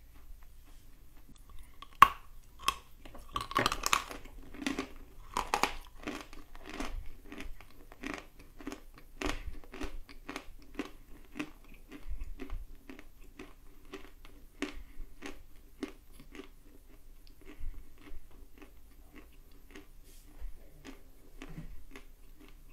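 A person biting a sharp snap off a dry lump of edible clay about two seconds in, then crunching it and chewing it in steady strokes, about two a second, which grow fainter toward the end.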